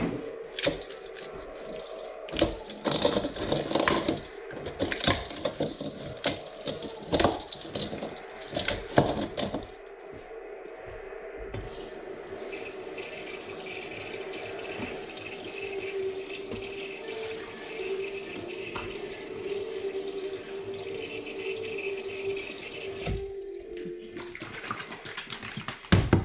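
Rice noodles being squeezed and broken up by hand in a bowl of water, with a quick run of splashes and knocks. From about twelve seconds in, water runs steadily, as from a kitchen tap, and it stops abruptly shortly before the end.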